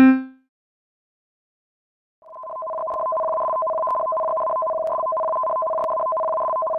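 Steady two-tone electronic alert tone that fades in about two seconds in and then holds, the alarm that opens the tsunami warning. Just before it, the last note of an electronic chime dies away.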